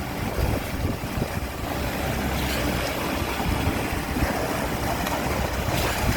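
Heavy truck engine running steadily, with wind noise on the microphone.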